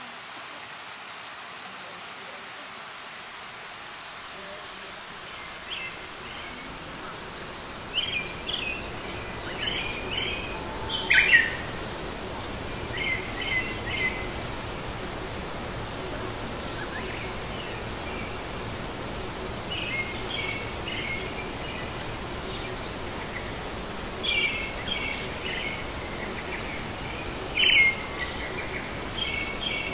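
Birds chirping in short, repeated calls over a steady rush of water spilling across a small river weir; a few chirps about eleven seconds in and near the end are louder.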